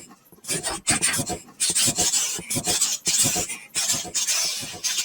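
Mouth-made imitation of a steam locomotive chugging: breathy, hissing chuffs in a steady rhythm, about three a second.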